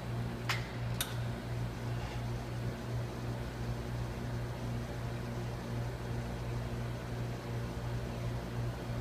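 Steady low electric machine hum, with two sharp clicks about half a second apart near the start.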